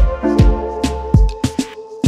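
Background music with a steady drum beat over held chords and a bass line.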